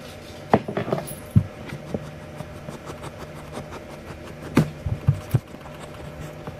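Handling noise: the camera being bumped and knocked about, with a cluster of sharp knocks and thumps about half a second in and another around four and a half seconds in, over a low steady hum.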